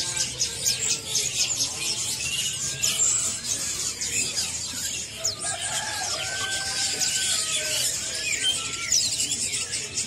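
Dense chorus of many small caged songbirds chirping: thin, high, short calls overlapping continuously, with a few longer, lower notes in the second half.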